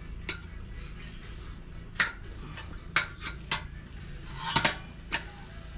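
Steel tire irons clinking against a dirt bike wheel rim as the tire bead is levered on: a scatter of sharp metallic clinks, the loudest about two seconds in and a quick cluster near the end.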